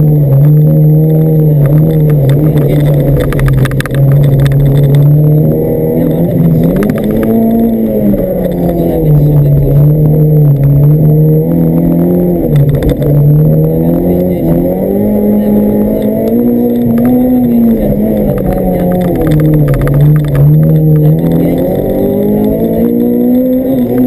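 Rally-prepared Honda Civic's B16B four-cylinder engine, heard from inside the cabin at full stage pace, its revs held high and rising and falling several times.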